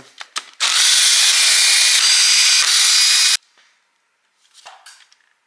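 Cordless drill-driver with a socket on reducers spinning out a cam holder bolt. It runs steadily for about three seconds, starting just under a second in, and cuts off abruptly. A few light clicks of metal parts follow.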